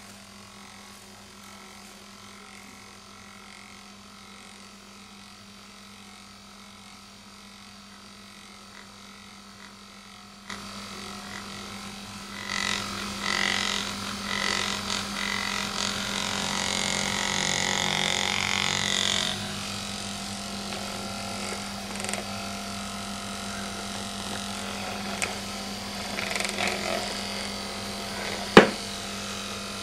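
Handheld Magnessage vibrating massager buzzing steadily with a low hum. About ten seconds in, louder rubbing and handling noise joins it as the device is worked against the cat's fur. A single sharp click comes near the end.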